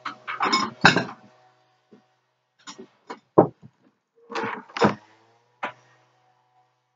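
Irregular knocks and clinks of things being handled close to the microphone, with short silences between them. There are two heavier thumps, one about a second in and one about three and a half seconds in.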